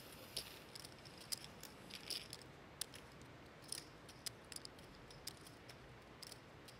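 Poker chips being handled at the table, making faint, irregular clicks, a few in quick clusters.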